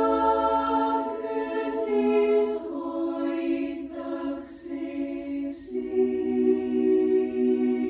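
Girls' choir singing a cappella in Estonian: slow, held chords that change twice, with soft s sounds between words.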